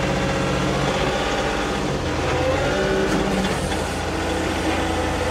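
John Deere 2038R compact tractor's three-cylinder diesel engine running steadily, heard from inside its closed cab; the engine note changes about two seconds in.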